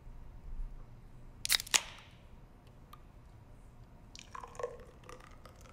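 Aluminium beer can cracked open, two sharp snaps about a second and a half in with a brief fizz after. Near the end, beer gurgles as it is poured from the can into a plastic water bottle.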